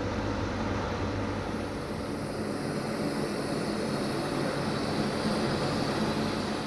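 Steady rumble and hum of a train running on the line, with a few low droning tones underneath.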